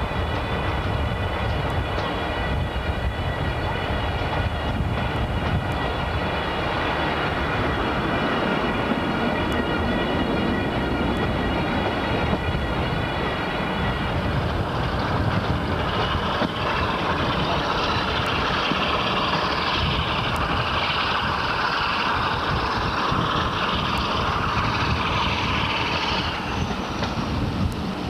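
Diesel locomotive hauling a passenger train, heard from an open carriage window: steady engine and wheel-on-rail noise. A high whine of several steady tones runs through the first half, then gives way to a broader rushing sound about halfway through.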